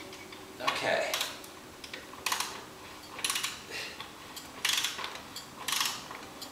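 Ratcheting wrench on a spark plug of a Rotax 377 engine, clicking in short rattling bursts about once a second as it is swung back and forth while the plug is tightened.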